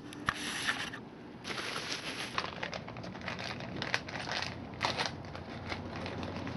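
Plastic packaging crinkling and rustling in several bursts, with a few sharp clicks, as a new side step is unwrapped by hand.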